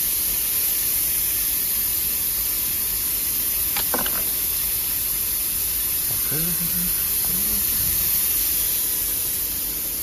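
Steady hiss and hum of an automatic bottle filling and capping line running. A brief click comes about four seconds in.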